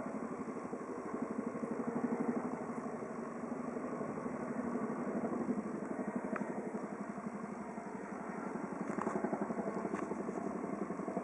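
Chinook tandem-rotor helicopter flying past, its rotor blades beating in a fast, regular throb that swells and fades in loudness.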